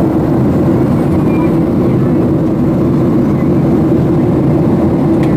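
Steady in-flight cabin noise of a Boeing 737-700, a low even rumble of engine and airflow that holds at one level throughout.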